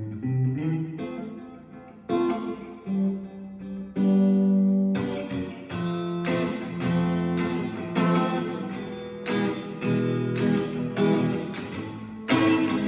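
Electric guitar with single-coil pickups, played through an amp with a mostly clean tone, picking out ringing chords and single notes.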